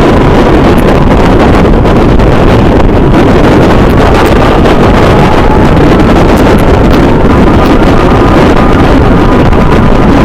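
Wind buffeting the microphone over a motorcycle riding at speed: a loud, steady rush with a faint steady whine underneath that is clearer in the second half.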